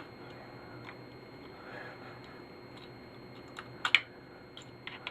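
Scattered sharp clicks and clacks of metal parts and hand tools as a piece of steel is worked loose from a TV component. The loudest is a quick double clack about four seconds in.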